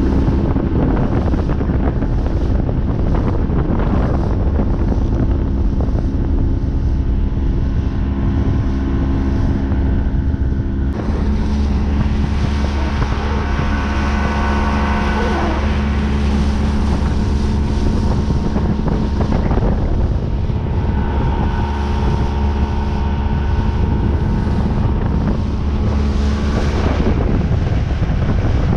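Boat's outboard motor running at speed, with wind buffeting the microphone and water rushing and spraying along the hull. The engine note changes about eleven seconds in.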